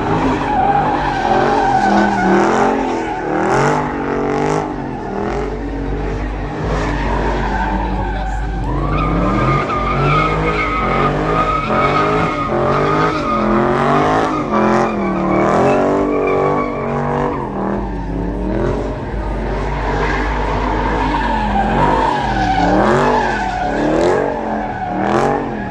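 Dodge Charger Hellcat's supercharged V8, with its muffler deleted, revving up and down over and over while doing donuts. Its rear tyres squeal in a steady high screech through most of it.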